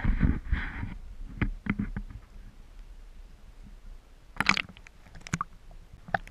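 Water sloshing and gurgling against a GoPro's waterproof housing as it is dipped at the surface of a partly frozen lake, heard muffled through the housing. A dense churn in the first second gives way to scattered knocks and clicks, with a cluster about four and a half seconds in and another near the end.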